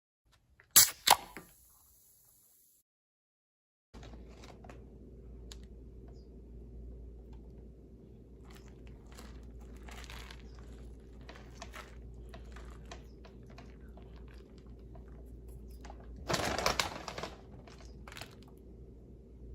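Close-miked pizza eating: small scattered clicks and crackles of chewing and handling over a steady electrical hum. Before that, two sharp clicks about a second in, and a louder noisy burst about a second long near the end.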